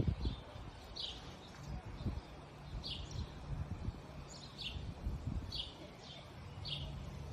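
A bird chirping over and over, short high notes about once a second, over a low background rumble.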